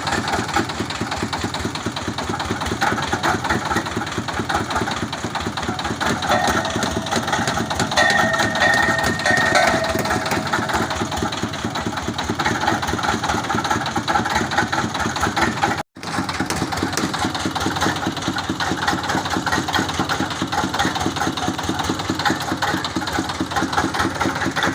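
Engine of a water-well boring machine running steadily with an even pulsing beat, a brief high squeal coming in about eight seconds in. The sound drops out for an instant about sixteen seconds in, then carries on unchanged.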